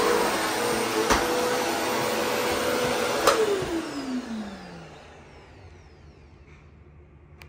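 Bagless upright vacuum cleaner running on carpet, with a click about a second in. About three seconds in it is switched off with a sharp click and the motor winds down in a falling whine that fades over the next two seconds.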